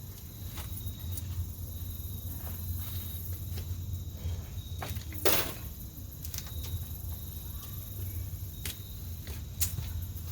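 Steady low rumble of an idling truck engine, with a few sharp clicks and one brief louder burst about five seconds in. The swapped LS engine does not crank.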